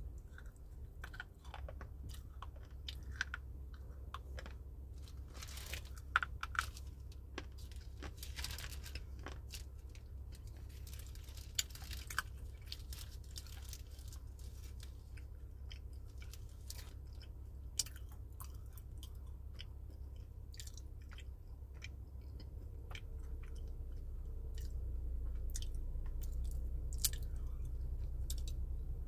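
Close-up chewing of crunchy dried fruit: scattered crisp crackles and snaps as it is bitten and ground between the teeth, over a steady low hum.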